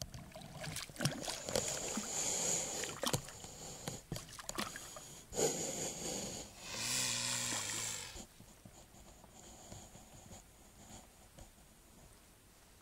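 A mute swan feeding in shallow water: irregular splashes and drips as it dips its head under and lifts it out. About seven seconds in it gives a short low call, and the splashing then eases off.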